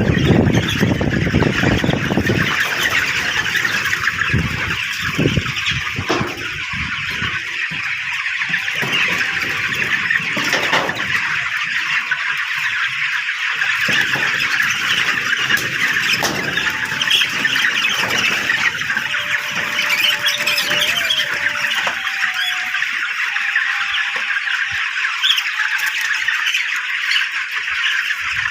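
A flock of broiler chickens calling in a dense, continuous chorus of many overlapping peeps and chirps. A low rumble runs under it for the first couple of seconds.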